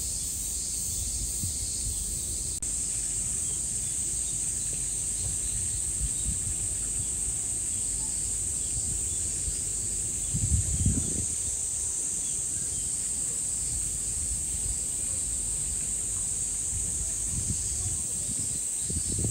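Steady high-pitched drone of insects over a low outdoor rumble, with a short louder rumble about ten seconds in.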